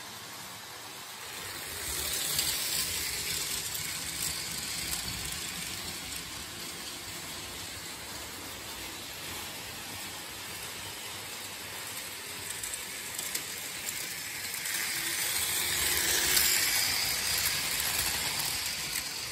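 Märklin HO model train running on metal M-track: a steady mechanical rattle and whirr of wheels and motor, getting louder as the train passes close about two seconds in and again near the end.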